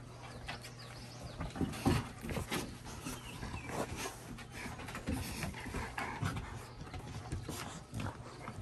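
Labrador retrievers playing tug of war over a chew toy: panting and scuffling in irregular short bursts.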